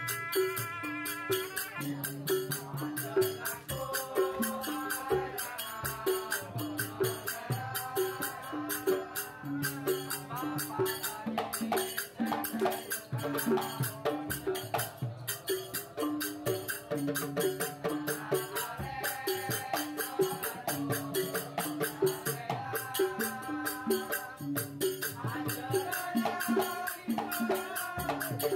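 Music with a melody over fast, busy shaken percussion and a steady bass line.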